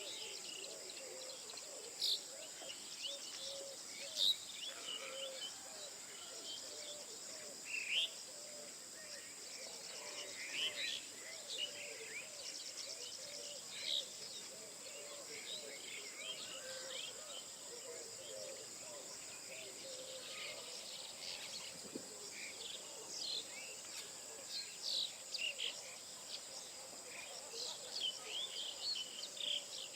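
Morning chorus of many birds chirping and calling in short, scattered high notes, over a steady high-pitched drone of insects.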